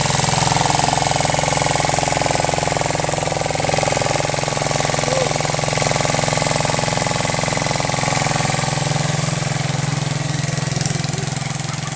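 An engine running steadily close by, with a fast, even firing pulse; it comes up in level just before and eases off a little near the end.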